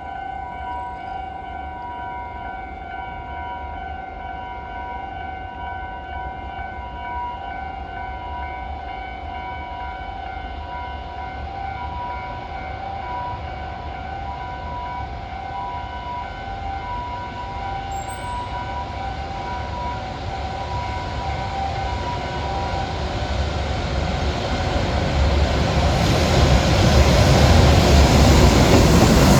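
A level-crossing warning bell rings in a steady repeating electronic ding, then an approaching freight train, an EH500 electric locomotive hauling container wagons, grows steadily louder over the last third and is loudest near the end.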